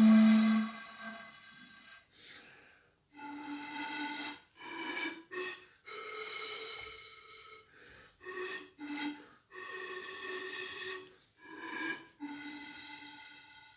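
Pan flute playing a slow solo melody: single breathy, held notes with short pauses between them, opening with one loud low note.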